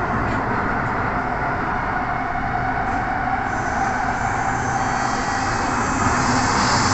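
Kawasaki Nippon Sharyo C751B metro train heard from inside the car while running through a tunnel: a steady rumble and rail noise that grows slightly louder. A faint high whine comes in about halfway.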